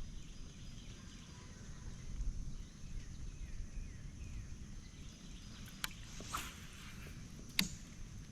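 Outdoor creek ambience with a low rumble and faint bird chirps in the first half. Near the end come two sharp clicks with a brief hiss between them.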